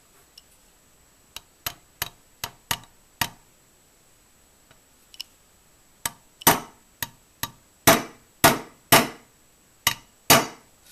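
A ratchet wrench's socket end used as a makeshift hammer, tapping a pin held in needle-nose pliers into an aluminium AR-15 lower receiver to get it started. First about six light taps, then after a pause about eight harder, ringing metallic strikes.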